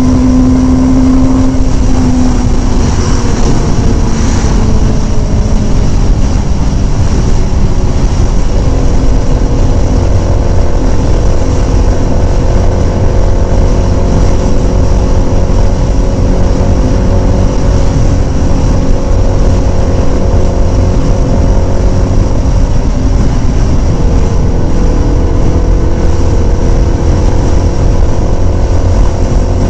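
Kawasaki Ninja sport bike engine running at highway cruising speed, with wind noise. The engine note sinks over the first few seconds, drops again about 23 seconds in, then climbs steadily.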